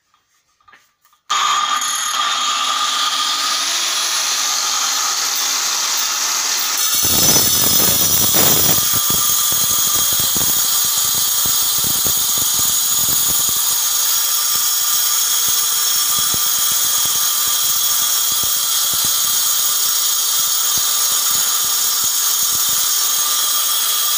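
Handheld electric saw with a segmented diamond blade, starting up about a second in with a high whine, then about seven seconds in the blade bites into the stone wall and cuts steadily with a loud grinding hiss.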